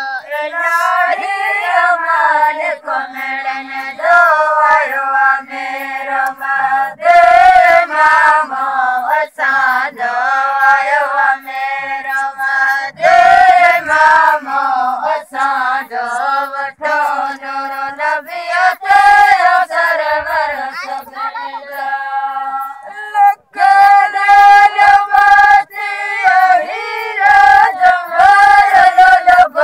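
Several voices singing a Sindhi sehra (wedding song) together in chorus, with one brief break about 23 seconds in.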